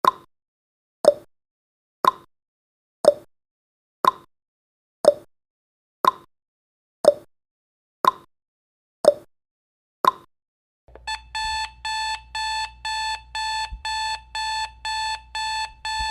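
Timer sound effect: a clock ticking once a second, alternating a higher tick and a lower tock, for the final seconds of the countdown. About eleven seconds in the ticking stops and an alarm-clock beep starts, about three beeps a second, signalling that the countdown has reached zero.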